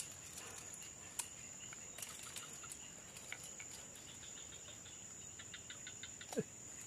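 Insects droning with one steady, high, even tone, over scattered faint clicks. Near the end comes a quick run of ticks and a brief falling sound.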